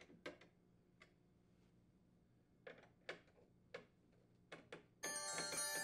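Faint, scattered clicks of a quarter-inch nut driver working the screws that hold a refrigerator freezer drawer front, a few at a time. About five seconds in, a music bed starts.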